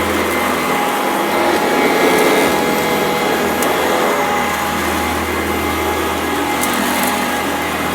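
Sanitaire SC899E upright vacuum running steadily under a constant motor hum, with a few sharp ticks of grit crunching up into the vacuum.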